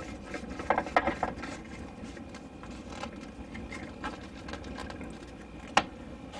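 Small clicks and taps of plastic drain fittings being handled and threaded together, with a single sharp click near the end.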